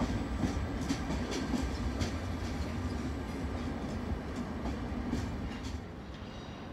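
A train rolling slowly along the station tracks: a steady low rumble with irregular clicks of the wheels over the track, getting a little quieter about six seconds in.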